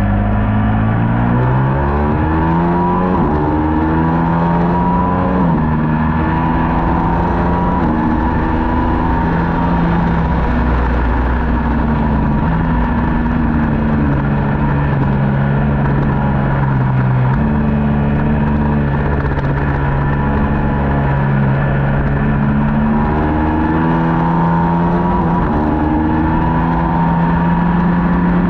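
Middleweight superbike race motorcycle engine at racing speed. It climbs in pitch under hard acceleration and drops at each of several quick upshifts early on. Through the middle it runs steadier with a few small shifts, then climbs and shifts up again near the end.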